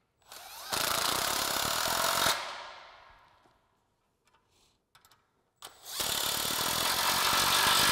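Cordless impact wrench with a 15 mm socket snugging down the nuts on steel exhaust band clamps: two runs of rapid hammering, the first about a second and a half long and the second about two seconds, each fading out afterwards.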